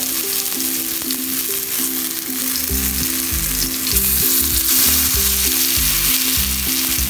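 Seekh kababs on wooden skewers frying in oil on a hot iron tawa: a steady, loud sizzling hiss. Background music with a bass beat runs underneath from about three seconds in.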